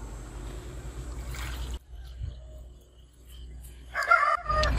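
Water poured from a plastic cup into a funnel on a small metal boiler, starting about four seconds in and loudest near the end. Before it, a steady low rumble cuts off suddenly about two seconds in.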